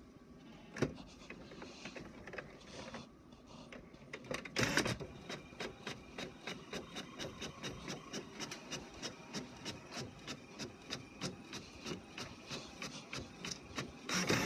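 HP Officejet 4500 inkjet all-in-one printer printing a page. There is a brief louder noise about four and a half seconds in, then steady clicking about three times a second as the print head shuttles across the sheet, with another louder stretch near the end.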